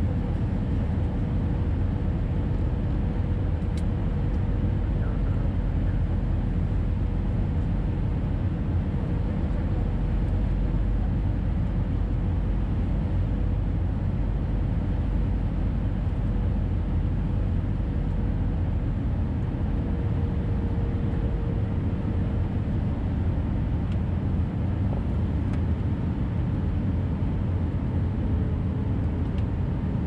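Airbus A320 cabin noise at a window seat: a steady low rumble of the engines and airflow, with a faint steady tone above it that dips slightly in pitch about twenty seconds in.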